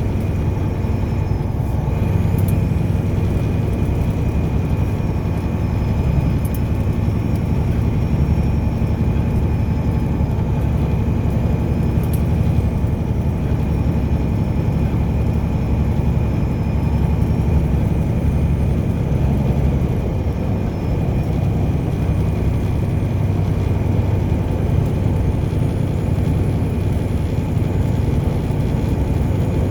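Car driving at steady speed: a steady low rumble of engine and tyres that does not rise or fall.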